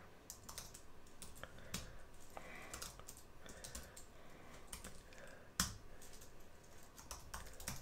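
Faint typing on a computer keyboard: irregular single keystrokes, with one louder key press a little past halfway.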